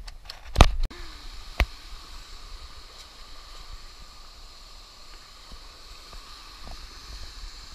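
Steady rushing of a small rocky stream, with two sharp knocks in the first two seconds.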